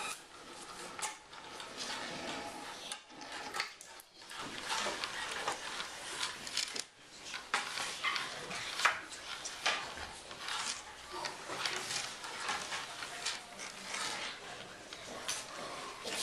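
Graphite pencil strokes scratching on drawing paper, a quick irregular run of short scratches that pauses briefly twice.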